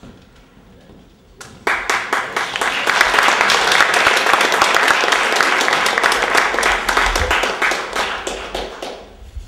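Audience applauding. The clapping starts suddenly about a second and a half in, stays strong and fades away near the end.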